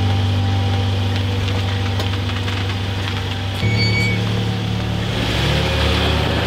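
Station wagon's engine running steadily, its tone changing a little past halfway, then rising slightly near the end as the car pulls away.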